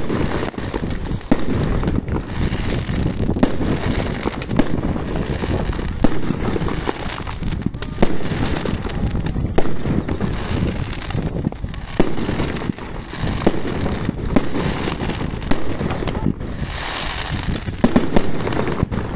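Aerial fireworks shots fired one after another, each going off with a sharp bang roughly every second or two, over a dense noise of launches and bursts that swells near the end.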